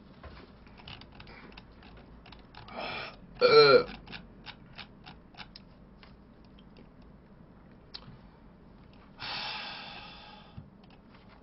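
A man burps loudly about three and a half seconds in, just after gulping cola, amid scattered light clicks. A second, longer breathy sound follows later on.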